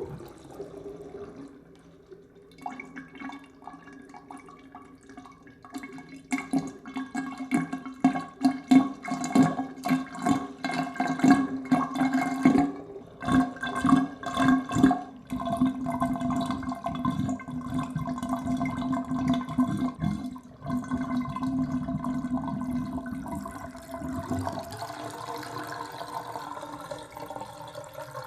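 Bathtub water draining down the plughole with a gurgling, pitched whirl. It comes in rapid irregular glugs for the first half, settles into a steadier drain, and thins to a weaker hiss near the end.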